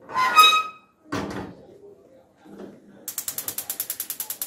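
Pots set down on a gas stove's burner grate: a ringing metal clatter, then a duller knock. About three seconds in, the gas burner's spark igniter starts ticking rapidly, about ten clicks a second, as the knob is turned to light the burner.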